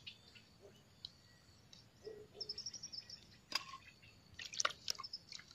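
Faint bird chirps in the background, with a few light clicks and taps from handling a small plastic bottle of drinking yogurt as its foil seal is pierced, the loudest a sharp click about three and a half seconds in and a short cluster about a second later.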